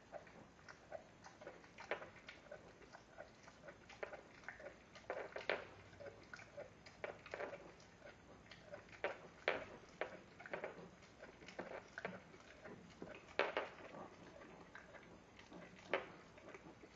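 Rottweiler gnawing on a raw knuckle bone: irregular clicks and scrapes of teeth on bone, with a few sharper ones standing out.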